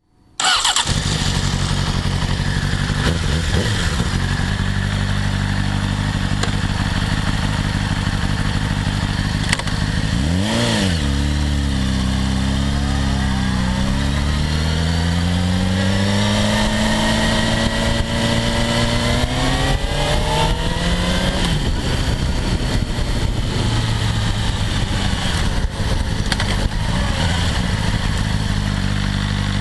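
Motorcycle engine running under way, with a steady rush of wind noise. The engine pitch dips about ten seconds in, climbs steadily for several seconds, then drops again about twenty-one seconds in.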